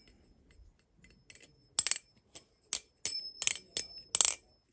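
Baliplus Orca V2 clone balisong being flipped: a quick run of sharp metallic clacks as the handles swing and knock together, some with a faint ring. The clacks start about a second and a half in and come in clusters.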